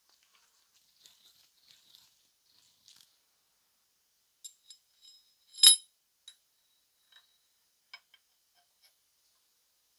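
Metal parts of a Keyang PHD-38 hammer drill being fitted together by hand: faint scraping and a few light clicks, then one sharp ringing metallic clink about five and a half seconds in, followed by a few soft ticks.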